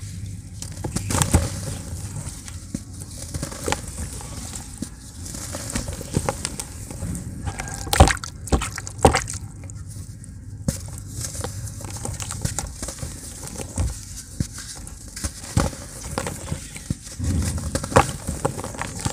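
Soaked blocks of pure cement crumbled by hand over a tub of water: irregular crunching and crackling, with crumbs and grit pattering and splashing into the water, and two sharper louder cracks about eight and nine seconds in.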